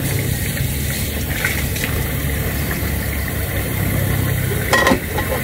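Steady low motor hum, with a short clatter of dishes near the end.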